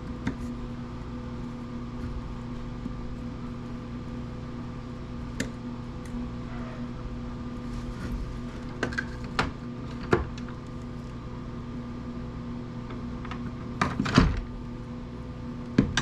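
Steady electrical hum with scattered small clicks and knocks of tools and metal parts being handled on a workbench, several louder knocks close together near the end.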